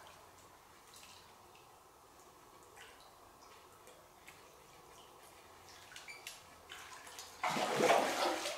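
Hooked carp splashing in the water at the foot of the rocks: small drips and splashes for several seconds, then a loud burst of thrashing splashes about seven seconds in.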